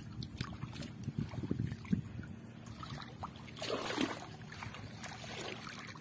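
Water splashing and dripping as a fishing net is hauled by hand out of the water, with a louder splash about four seconds in.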